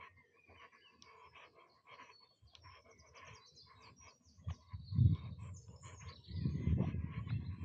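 Birds chirping and singing, in many quick short calls. From about halfway through, irregular low rumbling thumps close to the microphone grow to be the loudest sound.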